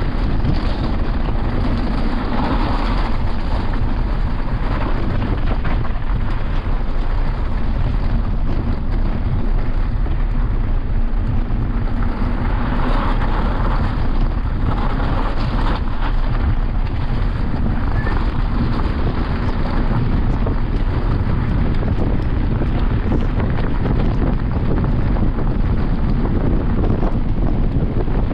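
Wind rushing over a mountain biker's camera microphone during a fast descent, with the rumble of the bike over a rough trail. It is loud and steady throughout.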